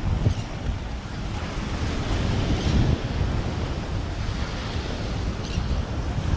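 Surf washing onto a sandy beach, with wind buffeting the microphone in a gusty low rumble.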